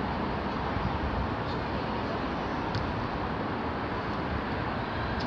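Steady traffic noise from the road overhead, an even rumble that does not change, with two faint short knocks about one and a half and nearly three seconds in.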